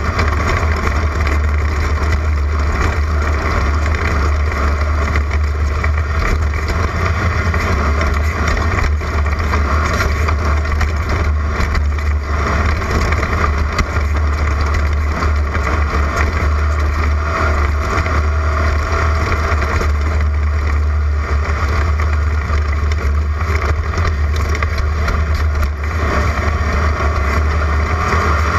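Class 11 stock Volkswagen Beetle race car running at speed: the air-cooled flat-four engine drones steadily over a heavy, continuous low rumble.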